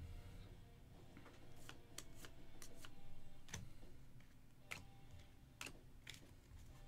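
Faint handling of trading cards and foil packs: scattered light clicks and taps, with a soft rustle in the middle.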